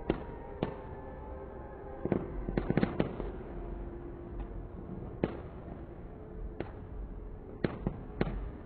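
Fireworks display going off in sharp bangs: two near the start, a quick cluster of bangs about two to three seconds in, then single bangs spaced out over the rest.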